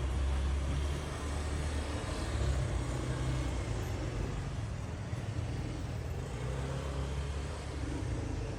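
Typhoon-strength wind gusting, buffeting the microphone with a low rumble that surges and eases every second or two over a steady rushing hiss.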